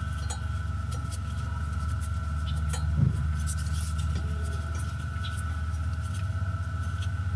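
Scattered small metallic clicks and scrapes of a bolt being started by hand into the exhaust manifold heat shield, over a steady low hum.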